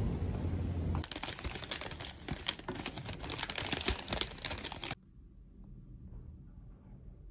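Paper bag being opened and rustled by hand: a dense run of crinkles and crackles from about a second in that stops suddenly about five seconds in. A low rumble comes before it, and after it only faint quiet with a few soft ticks.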